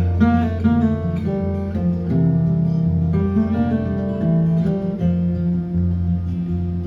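Acoustic guitar playing an instrumental break in a country-folk song, plucked notes over a steady bass line, with no singing.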